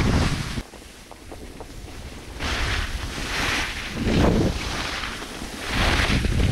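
Wind rumbling on the microphone of a moving skier, with skis hissing over snow in surges. The wind rumble cuts out suddenly just under a second in and comes back near the end.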